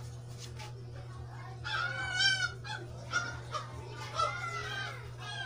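A rooster crowing twice, the first crow about two seconds in and louder, the second about four seconds in, over a steady low hum.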